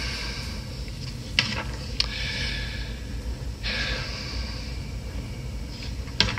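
A congregation settling into their pews: rustling and shuffling, with sharp knocks or clicks about a second and a half in, at two seconds, and near the end, over a steady low hum.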